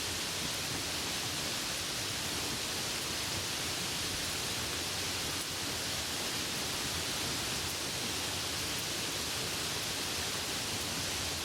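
Steady rain falling, an even dense hiss.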